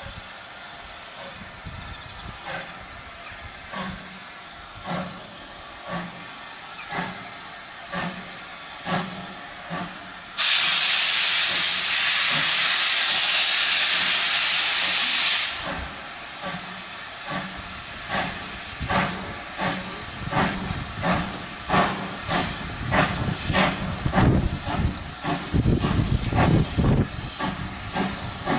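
Steam locomotive getting under way: sharp exhaust beats about one a second that quicken and grow louder as it draws nearer. About ten seconds in, a loud, steady hiss of steam starts abruptly and cuts off about five seconds later.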